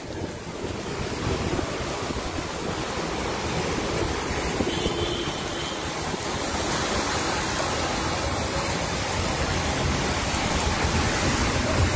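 Floodwater rushing along a street: a steady wash of water noise that grows slightly louder and brighter about six seconds in, as a vehicle ploughs through the flood throwing up spray.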